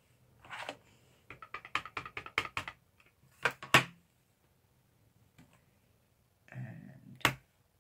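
Ink pad tapped quickly and repeatedly against a rubber stamp mounted on a Stamparatus's clear plate: a run of light plastic taps. Then a few sharper clicks, and near the end a soft thump and one sharp click as the clear plastic plate is handled.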